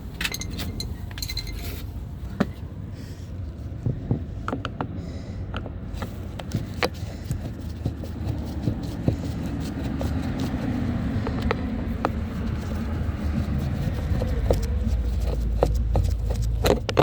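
Scattered small plastic clicks and light scraping as a trim cover is pried off a 2008 Honda CR-V's door panel and a Phillips screw is backed out with a screwdriver, over a steady low rumble.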